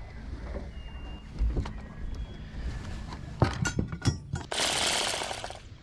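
Bubba electric fillet knife: a few clicks and rattles as it is handled, then its motor buzzes for about a second and stops near the end.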